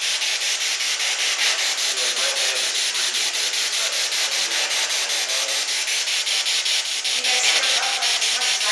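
P-SB7 spirit box sweeping through radio stations: a steady hiss of static chopped several times a second, with brief faint snatches of radio sound caught in the sweep.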